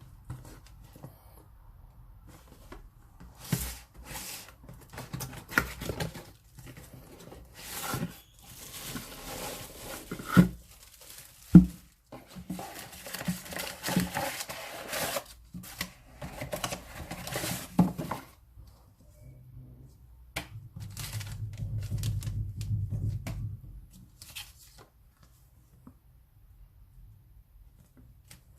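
Packaging of a speaker set being opened by hand: tape and cardboard tearing and wrapping crinkling, with knocks from handling the box. A low rumble follows for a few seconds near the end.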